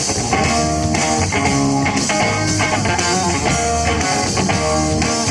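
Live rock band playing an instrumental passage between sung lines: guitars playing held and moving notes over bass and drums.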